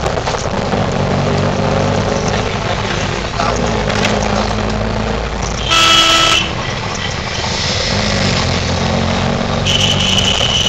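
Small auto-rickshaw engine running steadily while moving through street traffic, heard from inside the cab. A vehicle horn honks once for about half a second near the middle, and a higher-pitched horn sounds near the end.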